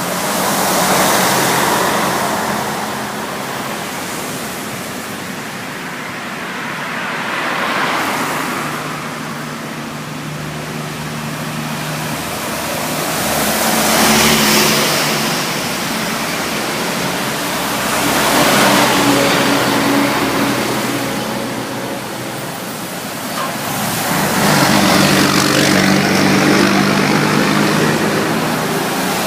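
Road traffic: vehicles passing one after another, their noise swelling and fading every few seconds over a low engine hum.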